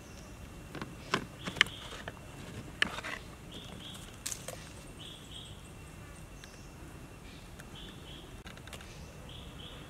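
A few sharp clacks in the first three seconds as cooked king crab pieces are set down on a wooden plate. After that, a high double chirp repeats in pairs several times over a faint steady high insect drone.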